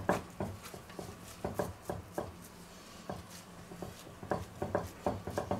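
Gloved hands pressing and patting raw minced meat into a loaf inside a clay pot. The sound is a series of soft, irregular squishes and pats, a few a second.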